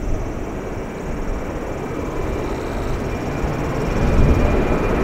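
Boeing 737-800's CFM56-7B turbofan engines at takeoff thrust as the jet accelerates down the runway toward the listener: a steady jet rumble with a faint high whine, growing steadily louder.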